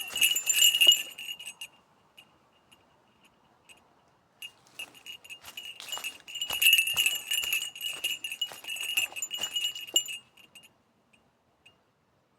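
A small bell jingling in two spells, a short one at the start and a longer one from about four and a half seconds to ten seconds in, then stopping.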